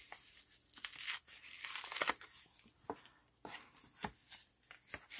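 Paper envelope being handled and opened by hand: rustling, scraping and tearing-like paper noises as the lace band is slid off and the flap pulled open, loudest about two seconds in, followed by a few short sharp paper snaps.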